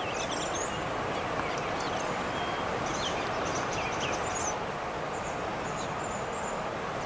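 Steady rush of a river, with small birds calling in short high chirps and whistles throughout.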